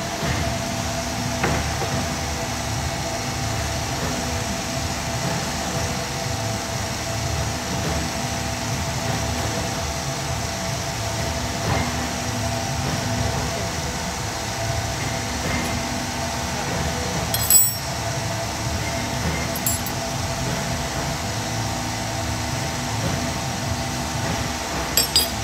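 Steady workshop hum with several fixed tones, broken by a sharp metal clink about two-thirds of the way through and a few lighter clinks near the end, from hand tools on a steel bench.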